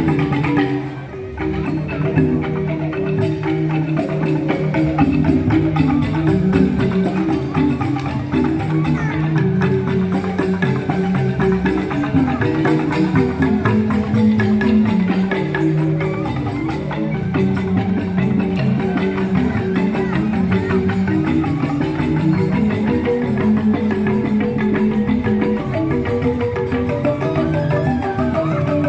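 Balinese joged bumbung gamelan playing: bamboo xylophones (grantang) struck in fast interlocking patterns, with a brief dip in level about a second in.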